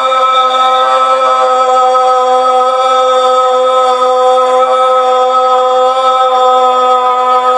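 A man's drawn-out shouted parade command at the Beating Retreat drill, one long loud note held at a steady pitch without a break.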